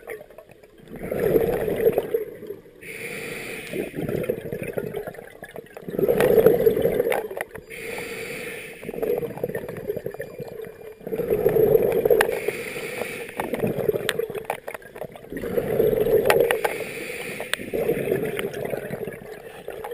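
Scuba diver breathing through a regulator: about four breaths, each a loud gush of exhaled bubbles followed by a quieter hiss of air drawn through the demand valve, repeating about every five seconds.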